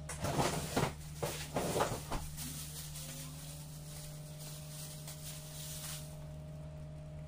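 About five short scrapes and knocks of kitchen handling at a stovetop frying pan of sauce during the first two seconds, then a steady low hum.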